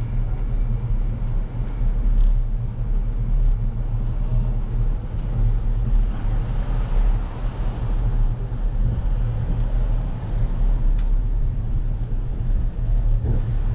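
Steady low rumble of wind and road noise on a bike-mounted action camera, with car traffic passing close by on the street.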